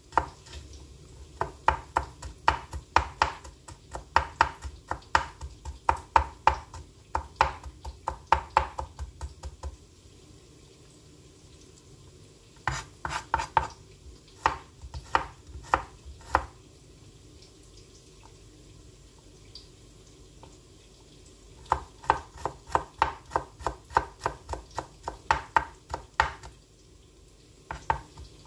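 Kitchen knife chopping garlic cloves on a plastic cutting board: three runs of quick, even knocks, about three a second, with short pauses between them.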